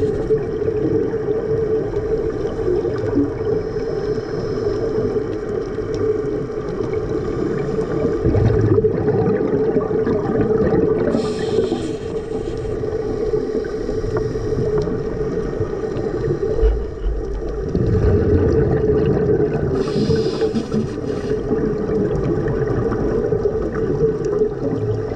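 Underwater sound of scuba divers breathing: a steady low rumbling and gurgling of exhaled bubbles, with two brief hisses about nine seconds apart from air drawn through a regulator.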